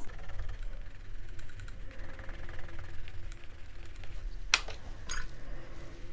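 Faber-Castell Albrecht Dürer watercolour pencil scratching across paper in hatching strokes. A sharp click comes about four and a half seconds in, and a fainter one half a second later.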